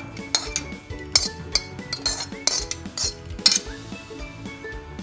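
Background music, with kitchen utensils clinking against a pot or sieve several times.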